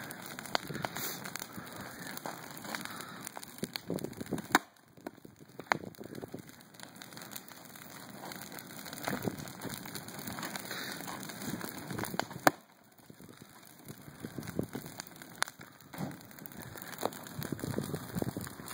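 Large wood bonfire burning: a steady crackle broken by frequent sharp pops, two of them especially loud, about four and twelve seconds in.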